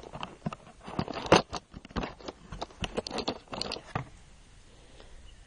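12-gauge target-load shotgun shells being handled: a quick run of irregular clicks, rattles and rustles that stops about four seconds in.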